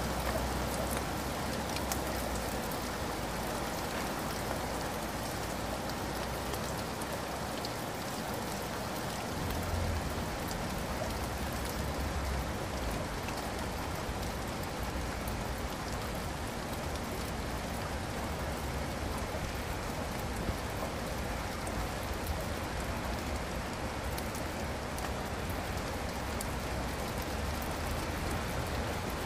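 Steady rain falling: an even, unbroken hiss with scattered small drop ticks, over a low rumble.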